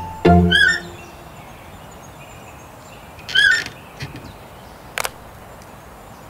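Two short bird calls about three seconds apart, each a quick rise and fall in pitch, over a faint steady hiss. A last plucked music note sounds at the very start, and a sharp click comes about five seconds in.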